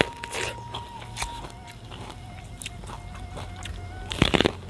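Biting and chewing raw purple sweet corn kernels straight off the cob: scattered crisp crunches, with a louder run of crunching bites near the end.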